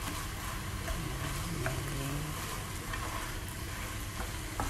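Ground meat with red lentils frying in a nonstick pan, sizzling steadily as it is stirred with a wooden spoon, with a few light clicks of the spoon.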